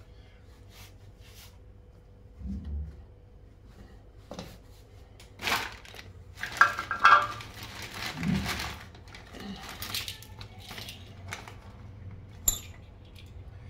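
A small packet of compressor fittings being opened and handled: plastic rustling and small metal sleeves and a clip clinking together in the hand, with two dull bumps and one sharp click near the end.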